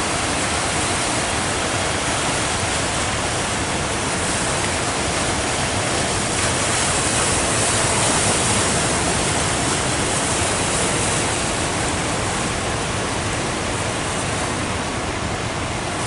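Heavy surf breaking and washing up the beach: a steady, loud rush of water noise that swells slightly in the middle.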